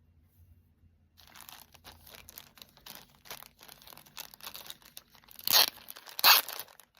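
Crinkly packaging being handled and unwrapped, a rapid crackling rustle that starts about a second in, with two or three louder tearing crackles near the end.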